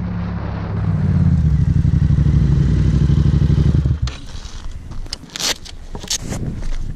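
Yamaha XSR motorcycle engine running with a fast, even pulse, getting louder about a second in, then stopping abruptly about four seconds in. After that come short rustles and clatters of leather riding gloves being pulled on.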